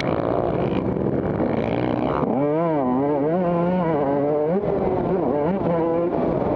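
Motocross dirt bike engines revving, the pitch rising and falling over and over with throttle and gear changes.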